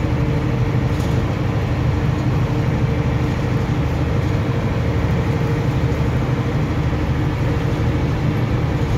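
Mercedes-Benz Unimog truck's engine running steadily under way, heard from inside the cab as a continuous low hum with road and drivetrain noise.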